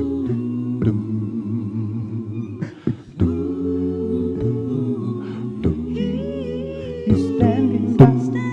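A cappella gospel vocal group singing held chords in several voices, with sharp percussive hits every second or so. The sound drops out briefly about three seconds in.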